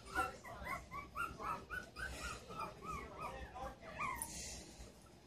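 Young Havamaltzu puppies whimpering: a quick string of short, high-pitched cries, about three a second, trailing off near the end.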